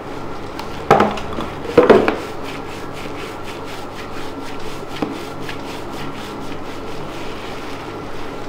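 Hands rubbing over a person's body during a massage, in quick, even strokes, with two loud hits about a second apart near the start.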